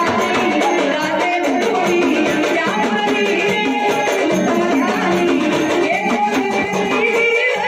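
Live Marathi gavlan folk song: a woman singing over a barrel hand drum and rattling percussion, with a melodic line that moves up and down.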